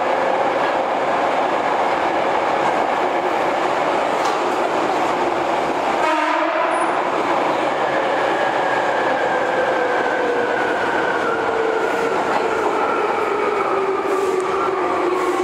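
Running sound of a Hankyu 5300 series electric train in a subway tunnel, heard from on board: steady wheel and rail rumble with a motor whine. From about eight seconds in, the whine falls steadily in pitch as the train slows.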